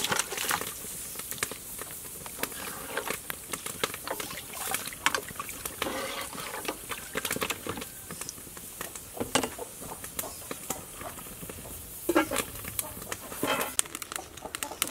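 Pork bones tipped into a pot of soup and worked with a metal ladle: scattered clicks, knocks and splashes. Two or three short animal calls come in about six seconds in and again near twelve seconds.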